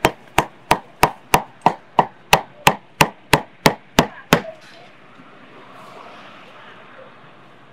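Meat cleaver chopping roast pork on a thick round wooden chopping block, with about fourteen sharp, even chops at about three a second that stop about four seconds in.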